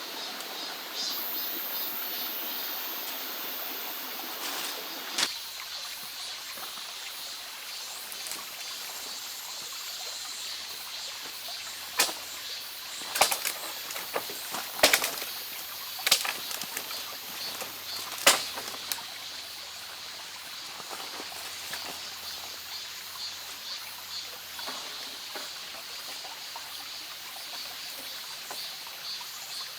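Mountain valley stream running steadily, with a handful of sharp knocks or clicks close together about halfway through.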